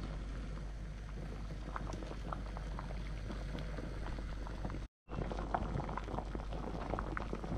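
Water at a rolling boil in a stainless steel pot with whole oysters in their shells, a steady bubbling with small scattered pops. It drops out briefly about five seconds in. The oysters are being boiled until their shells open.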